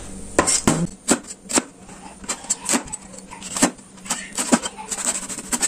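Kitchen knife slicing green chillies on a chopping board: a string of sharp, irregular taps, about two a second, as the blade comes down on the board.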